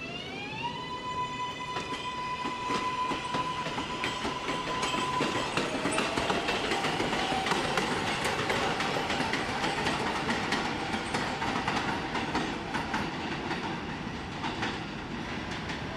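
New York City Subway R142A train accelerating past, its electric propulsion giving a whine that rises in pitch over the first second and then holds one steady tone for several seconds. The wheels clatter over rail joints throughout, loudest about halfway through as the cars pass closest.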